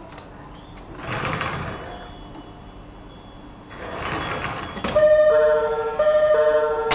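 Two short bursts of hiss, then, about five seconds in, the E751 series express train's electronic music horn starts playing its melody: sustained notes with a slight warble, stepping between pitches.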